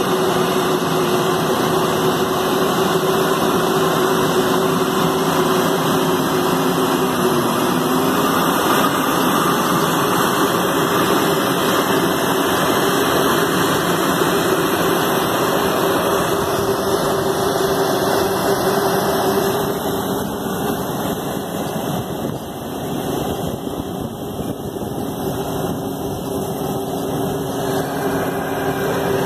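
Challenger MT875E tracked tractor's diesel engine running steadily under load while pulling a tillage implement through the soil; the sound gets a little quieter and thinner for several seconds about two-thirds through.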